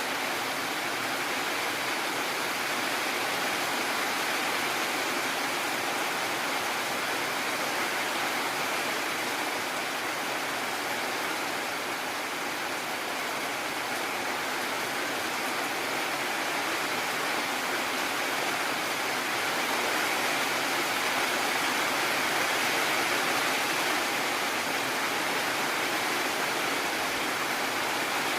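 Heavy rain pouring steadily, a dense even hiss that swells slightly about twenty seconds in.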